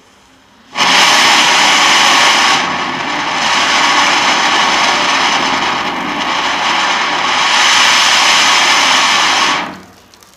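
A rocket cracker firework burning in place and spraying sparks upward, making a loud steady hiss. The hiss starts suddenly about a second in and dies away after about nine seconds.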